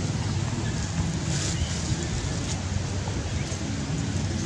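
Steady rushing outdoor background noise with a low rumble underneath.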